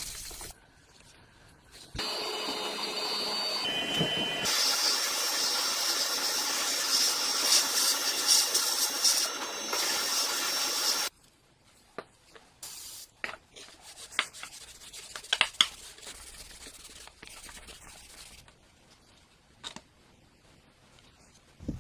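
A motorised tool runs for about nine seconds with a steady hissing, rubbing noise and a thin whine, then cuts off suddenly. Scattered light clicks and taps follow, as of small parts being handled.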